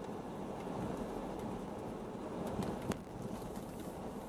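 Car driving over a gravel road, heard from inside the cabin: a steady rumble of tyres and engine, with a few sharp clicks between two and three seconds in, the loudest just before three seconds.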